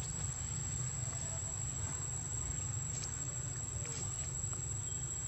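Steady high-pitched insect drone, such as cicadas or crickets, over a low steady rumble, with a couple of faint clicks about three and four seconds in.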